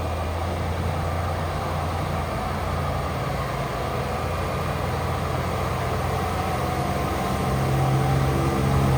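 Diesel engine of heavy earthmoving machinery running steadily, growing a little louder near the end.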